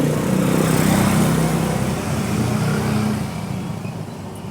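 A motorcycle engine running, steady for about three seconds and then fading away.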